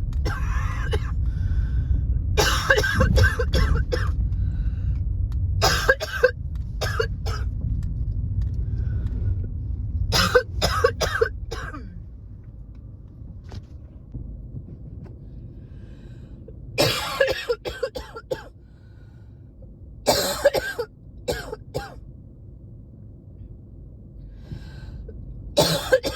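A person coughing in repeated fits, about seven bouts of several quick coughs each with pauses between. This is an allergy cough from a tight chest, not illness. A low rumble sits under the first half and fades out about halfway through.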